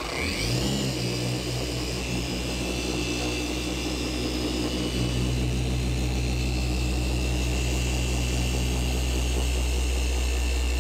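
Rupes polisher with a coarse foam pad cutting car paint with coarse compound. Its motor spins up at the start, then runs steadily with a low hum and a high whine.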